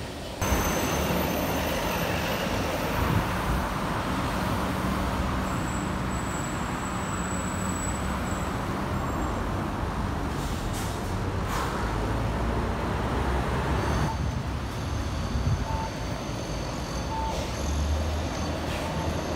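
Steady road-vehicle noise with a low engine hum. The sound changes abruptly about half a second in and again around fourteen seconds in.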